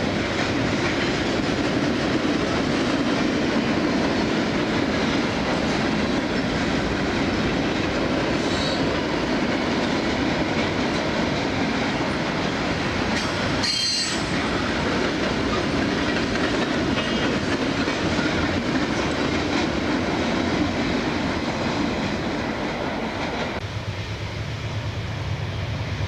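Freight cars of a passing CSX train rolling by close at hand: a steady loud rolling noise of steel wheels on rail, with a brief high squeal about halfway through. Near the end the rolling noise eases and a low hum remains.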